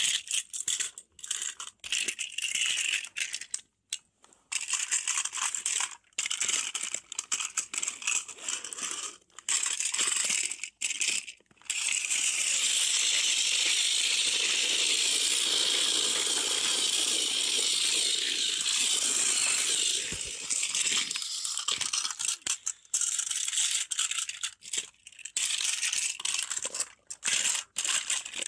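Battery-powered toy locomotive running on blue plastic track, the noise of its small motor and wheels cutting in and out in short bursts. About halfway through it runs unbroken for roughly eight seconds.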